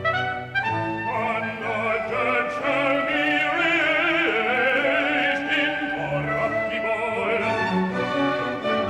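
Bass soloist singing a Baroque oratorio aria with vibrato, accompanied by an orchestra.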